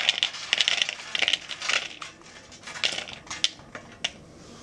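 Roasted cocoa beans tipped off a metal baking tray, rattling and clattering into a plastic bowl in a series of bursts that thin out and stop about three and a half seconds in.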